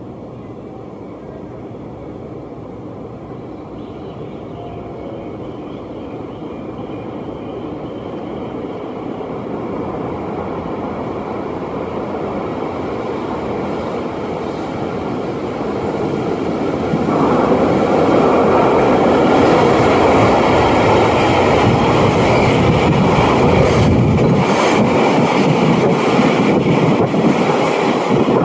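A Musashino Line train approaching and passing close by: its rumble builds steadily for about seventeen seconds, then stays loud, with the clatter of wheels over the rails near the end.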